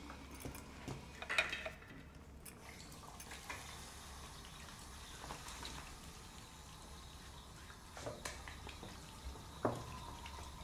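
Faint water drips and small clinks at a washbasin, over a low steady hum; the sharpest knocks come about a second in and again near the end.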